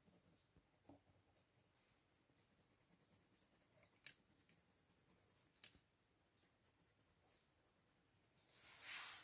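Faint scratching of a coloured pencil shading on textured sketchbook paper, a quick run of soft strokes. Near the end comes a louder rustle of a hand moving over the paper.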